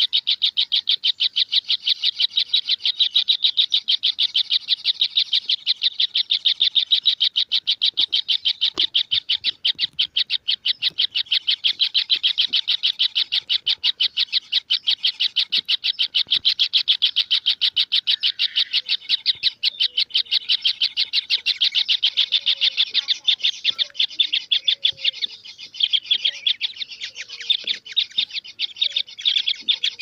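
Kingfisher (tengkek udang) chick calling nonstop: a rapid, unbroken stream of short high-pitched calls, many a second.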